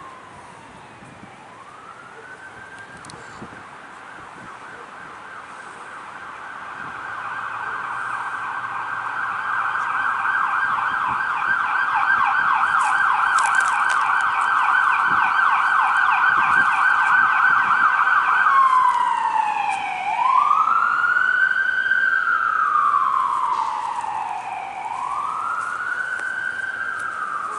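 Emergency-vehicle siren going by, growing louder. It starts as a slow rising and falling wail, switches a few seconds in to a fast yelp, and near the end returns to the slow wail.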